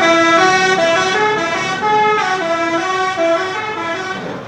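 Bus 'telolet' musical horn playing a quick tune of several stepping notes, then cutting off near the end.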